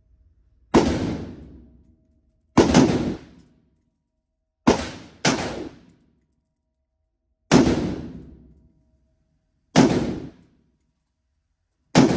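Seven semi-automatic AR-15 rifle shots firing 5.56 NATO, fired singly about every two seconds, with two in quick succession around the middle, each one ringing briefly away.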